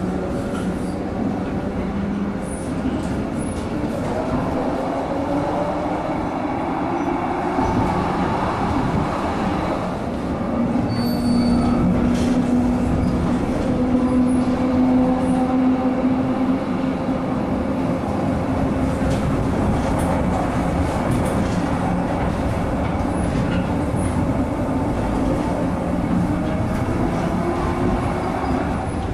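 Tram running along street track, heard from inside: a steady rumble of wheels on rails with a motor hum that rises slightly in pitch from about ten seconds in, and a brief high squeal around eleven seconds.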